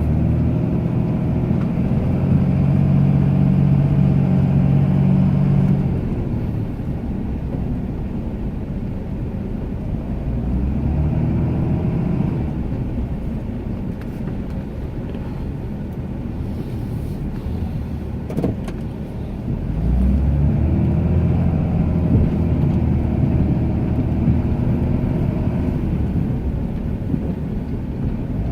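Ram 2500 pickup's engine working while plowing snow, running harder for the first several seconds and again for the last third, easing off in between as the pitch rises and falls.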